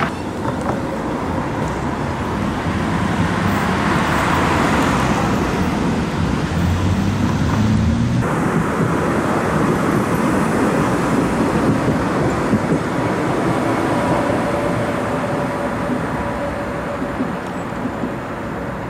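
Road traffic and a Tatra tram passing on a bridge: a steady rumble of cars and rail wheels that builds to about eight seconds in, where the sound changes abruptly. After that the tram runs by with a faint steady whine over the traffic.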